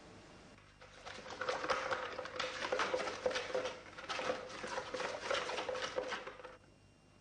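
A round pot being stirred by hand: quick, rapid scraping strokes against its inside, with a faint ringing from the pot. It starts about a second in and stops shortly before the end.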